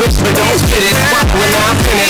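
Hip-hop style dance music with a steady beat of deep, booming kick drums that slide down in pitch, about two a second, under a sliding melodic line.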